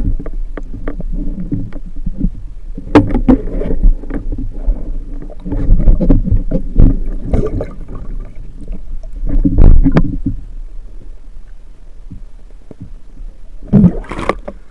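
Muffled underwater sound of a diver moving and handling a speared fish on a wooden spear gun: low rumbling water movement with scattered knocks and clicks.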